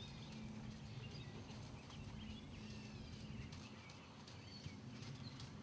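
Hoofbeats of a horse led in hand over a gravel arena, light irregular steps, with birds chirping in the background and a faint steady low hum underneath.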